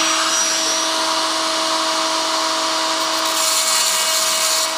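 Handheld rotary tool with a cutoff wheel running at a steady speed, cutting through a rusty steel screw on the clamp band of a vacuum brake booster. It starts abruptly and holds an even, high-pitched whine with a hiss of cutting.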